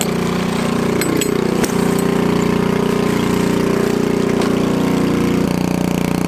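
A vehicle engine idling steadily, with a few light clicks about a second in.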